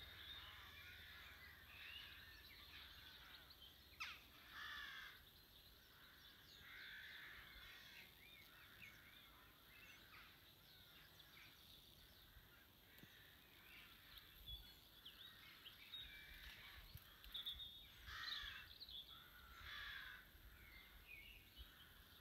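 Faint birdsong and calls from several birds, many short chirps and warbling phrases, louder about four seconds in and again near the end.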